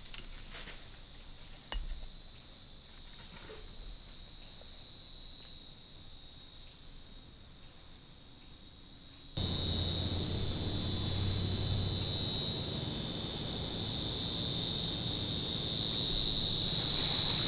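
A steady, high-pitched chorus of insects such as crickets, which becomes abruptly much louder about nine seconds in.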